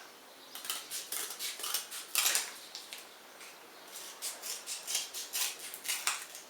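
Scissors cutting through cardboard: a run of short, crisp snips in two spells, with a pause about three seconds in.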